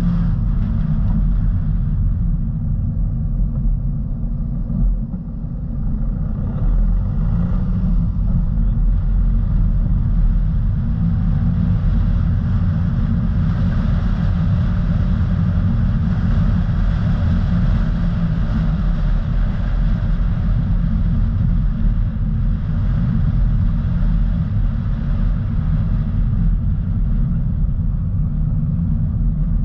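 Steady low rumble of a car driving along a road, engine and tyre noise with a fainter hiss above it. The rumble dips briefly about five seconds in.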